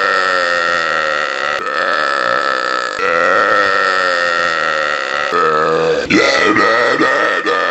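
Loud, drawn-out human belching: a run of about five long burps, one straight after another, each lasting a second or more. Near the end one is choppier and breaks up.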